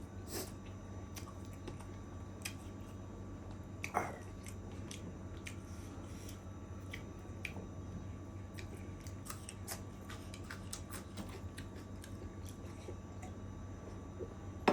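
Close-up eating sounds of chicken curry and rice: chewing with frequent small wet mouth clicks and smacks at an irregular pace, one louder smack about four seconds in.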